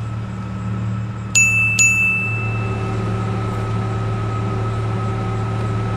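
Two quick electronic dings from a Jeep Cherokee XJ's dashboard warning chime, about half a second apart, the second ringing on for about a second. They sound over the steady low hum of the idling engine, which gets a little louder about two seconds in.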